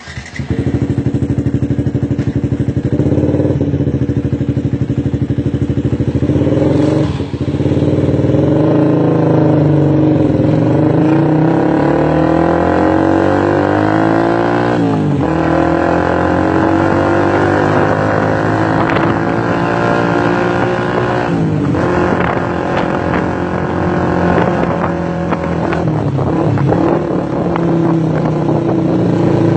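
Motorcycle with an R9 aftermarket exhaust, loud and gruff, its engine pitch rising and falling several times as the throttle is opened and eased off, with a few sharp breaks between pulls.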